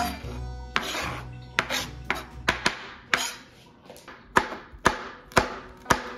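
Chef's knife chopping on a plastic cutting board: sharp knocks, irregular at first as the onion is finished, then four evenly spaced strikes about half a second apart near the end as a red chili pepper is cut.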